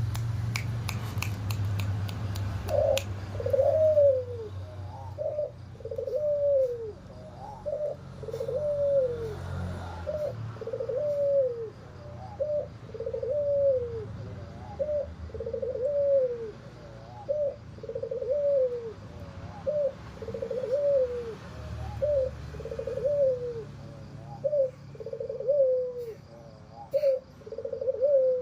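An albino puter (domestic ringneck dove) cooing over and over in a hoarse voice, each coo arching up and falling, about one every second and a half. A few sharp clicks come before the cooing begins.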